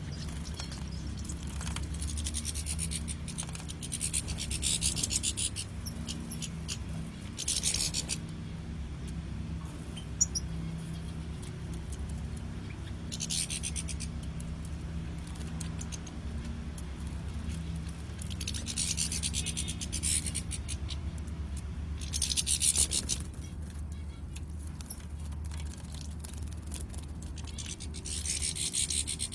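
European goldfinches bathing in a shallow tray of water: about six short bouts of rapid wing-fluttering splashes, each lasting one to two seconds, over a steady low hum.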